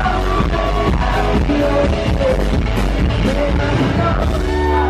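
Live indie-folk band playing amplified, with acoustic guitar, a driving drumbeat and singing. Near the end the beat drops out, leaving a held chord ringing.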